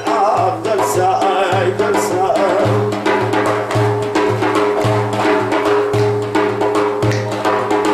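Instrumental break in a Kurdish song: a large frame drum (daf) beaten in a steady rhythm over a sustained low pitched accompaniment.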